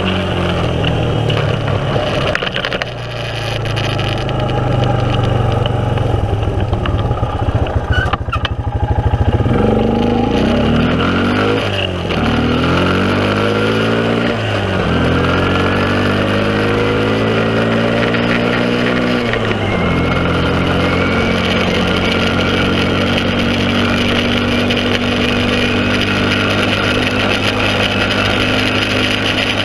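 Honda 300EX ATV's single-cylinder four-stroke engine accelerating under way, its note climbing and dropping back three times as it shifts up through the gears, then running at a steady cruising pitch.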